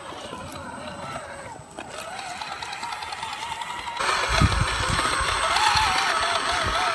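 Electric motor and gear whine of a scale RC rock crawler inching over rock, its pitch wavering up and down with the throttle. About four seconds in it becomes much louder and closer, with low thumps underneath.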